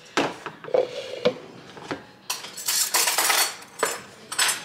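Kitchen handling sounds as sugar is measured into a plastic tub of cut bananas: a metal measuring cup and the tub clink and knock several times, with about a second of rustling scrape midway.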